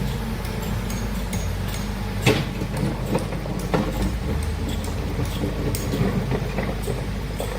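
Heavy earthmoving machine's engine running steadily with a low rumble, with scattered knocks and clanks from the working machinery and a sharper knock about two seconds in.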